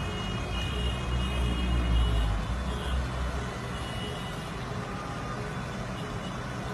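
Floodwater rushing and churning around partly submerged cars on a flooded street: a steady wash of water noise with a low rumble that eases after about two and a half seconds.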